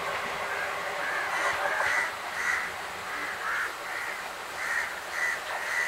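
Crows cawing, a run of about ten short caws at roughly two a second starting about a second in, over the steady running noise of the train.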